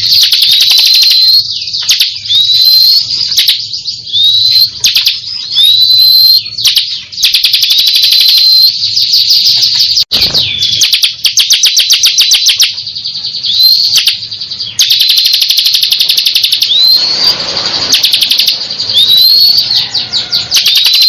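Bar-winged prinia (ciblek kristal) singing continuously and loudly: fast rattling trills alternating with short rising whistles, repeated every second or so.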